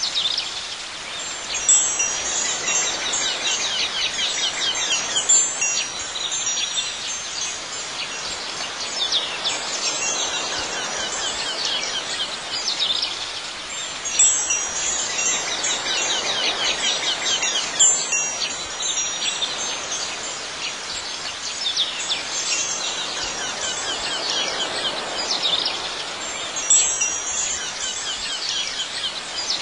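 Wind chimes tinkling over a steady hiss of outdoor ambience, in a looped track whose pattern repeats about every twelve and a half seconds.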